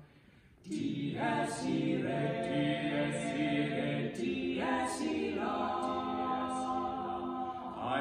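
Barbershop quartet of four male voices singing a cappella in close harmony. The voices come in together after a brief silence at the start and hold long, steady chords.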